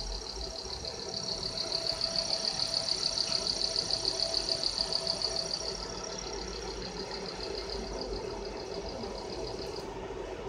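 Galvo scanner head of a 20 W MOPA fiber laser marking machine sweeping the red-light preview outline. It gives a high-pitched whine pulsing about six times a second that weakens partway through and stops just before the end. Under it runs a steady low machine hum.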